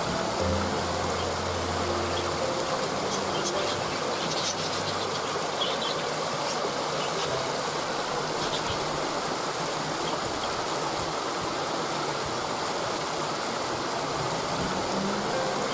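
Waterfall rushing as a steady even hiss of falling water. Low sustained tones of soft background music sound at the start and again near the end. A few faint high chirps come a few seconds in.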